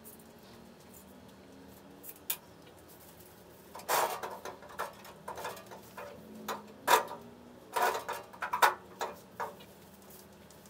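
Scattered knocks, taps and scrapes of heavy slate pool-table bed slabs being shifted and nudged into line on the table frame by hand. The first few seconds are quiet apart from one click; the knocks cluster in the second half, the loudest two near the end.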